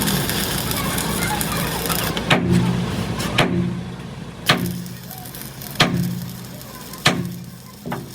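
A steady machine hum that drops away about two seconds in, then a series of sharp strikes about a second apart on heavy metal parts, five strong ones and a weaker one near the end, each leaving a short low ring.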